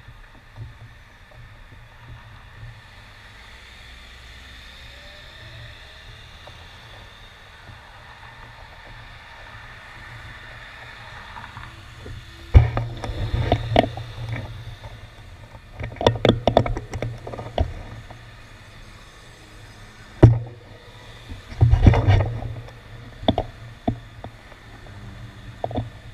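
Steady hum of traffic at an intersection. About halfway through, irregular bursts of deep rumble with sharp knocks begin on the handlebar-mounted camera: buffeting and bumps on its microphone, the loudest sound here, while cars pass close by.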